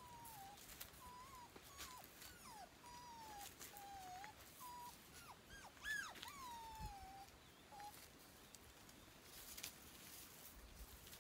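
A dog whining: a string of short high whines, most sliding down in pitch, with one louder whine about six seconds in that rises and then falls. The whining stops about eight seconds in.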